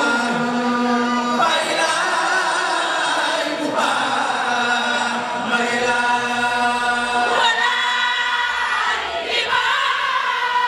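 Islamic zikr chanting: a woman's voice leads through a microphone and a chorus of voices chants with her, in repeated phrases of held notes.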